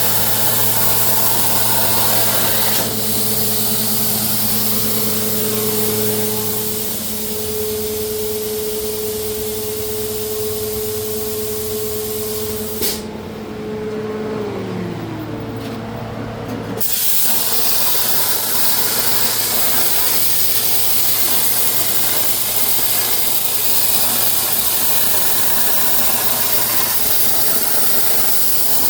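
CNC plasma cutter's torch arc hissing steadily as it cuts 11-gauge steel plate. About halfway through, the arc cuts off with a click, leaving a steady machine hum whose pitch falls. About four seconds later the hiss starts again as the torch fires on the next cut.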